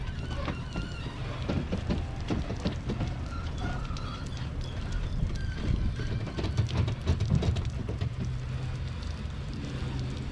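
Bass boat riding on its trailer while towed at low speed: a steady low rumble with irregular rattling and clattering from the boat and trailer, louder in places.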